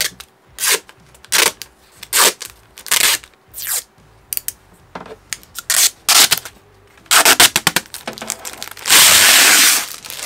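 Protective plastic film being peeled off a new plastic door panel. It starts with a series of short rubbing scrapes, about one every three-quarters of a second, then crackles quickly, and near the end comes a long loud rip as the film pulls away from the sheet.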